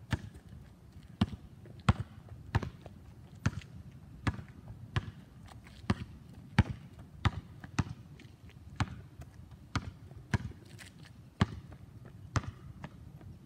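Basketball dribbled on asphalt: sharp, unevenly spaced bounces a little under a second apart as the ball is worked around cones.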